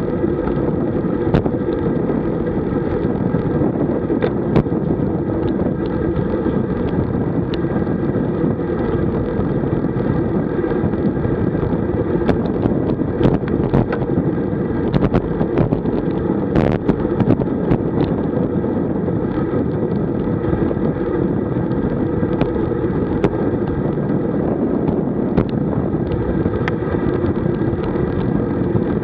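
Steady wind rush on the microphone of a camera mounted on a road bike riding at about 30 to 40 km/h, with scattered sharp clicks and rattles.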